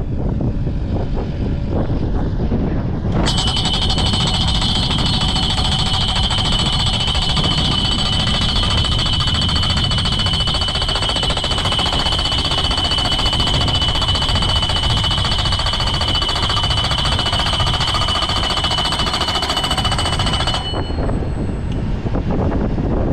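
A power tool switches on about three seconds in and runs steadily with a high whine for about seventeen seconds, then cuts off abruptly. Strong wind buffets the microphone throughout.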